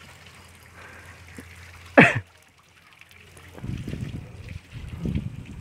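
Faint trickling of water in a concrete bathing tank fed by a drilled well. About two seconds in there is one brief, loud cough-like vocal sound, and from the middle on a low, uneven rumbling on the microphone as the camera moves off across the yard.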